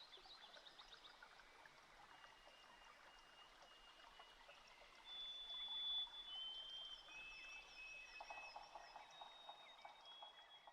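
Faint birdsong: several birds chirping and trilling, with long high whistled notes from about halfway in and a quick low pulsed call near the end, over a soft hiss like running water.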